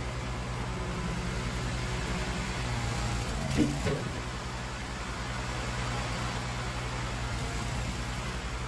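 Engine of a sawmill board edger running steadily with an even low pulsing beat. The owner believes it is running rough and asks what is wrong with it. A brief sharp knock about three and a half seconds in.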